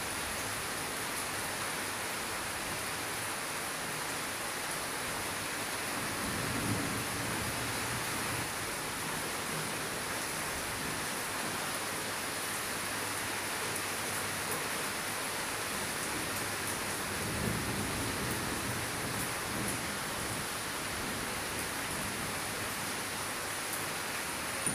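Steady rainfall, an even hiss of drops falling on water and the ground. Two low rumbles swell up underneath it, about seven seconds in and again about seventeen seconds in.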